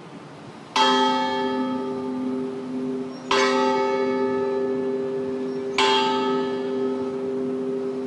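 The Delta Queen steamboat's bell, a Kaye Co. bell first carried by the 1883 sidewheeler City of St. Louis, struck three times about two and a half seconds apart, each stroke ringing on into the next.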